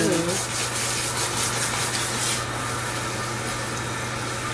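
Water hissing from a salon shampoo-bowl sprayer over wet hair while the stylist's hand scrubs the scalp, a quick rhythmic rubbing. The spray cuts off after about two and a half seconds, leaving softer rubbing over a low steady hum.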